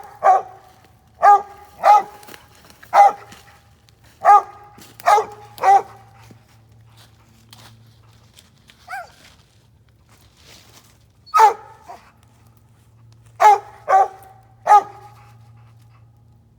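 Mountain Cur barking at a tree, about a dozen short, loud barks in irregular groups of two or three with pauses between them: the dog barking treed at a squirrel hidden in the top of a shagbark hickory.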